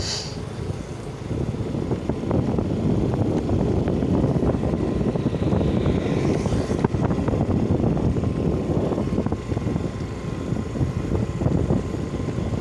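Motorcycle riding at speed on a concrete road: wind buffeting the microphone over the engine and tyre noise, getting louder about a second and a half in.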